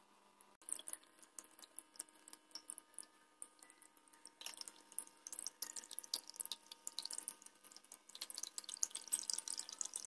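Small battery-pump bottle fountain running: thin streams of water falling onto wet pebbles in a tray, heard as faint, irregular splashing and dripping that starts about half a second in and grows busier from about halfway through.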